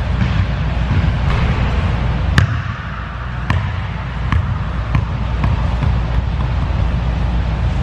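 A basketball bouncing on a hardwood gym floor after a shot: one sharp bounce about two and a half seconds in, then bounces coming closer together and weaker as the ball settles. A steady low rumble runs underneath.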